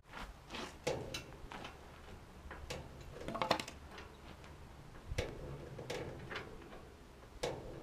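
Scattered light clicks and knocks, about ten at irregular spacing, from an engine hoist being worked to lift the bow of a steel hull.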